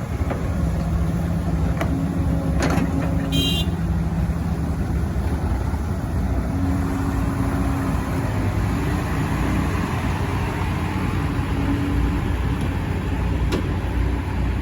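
Heavy diesel engine of construction machinery running steadily, its pitch shifting a little as it works. A brief high beep sounds about three seconds in, and a few sharp knocks are scattered through.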